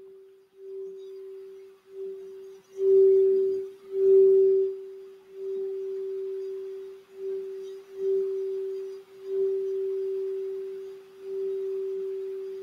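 Crystal Alchemy quartz singing bowl tuned for the throat chakra, played with a wand: one steady pure tone that swells and dips about once a second, with two stronger strokes about three and four seconds in.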